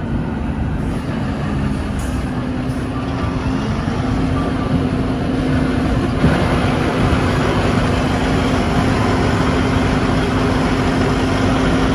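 Moving vehicle: a steady engine hum over road noise, the hum rising slightly about four seconds in.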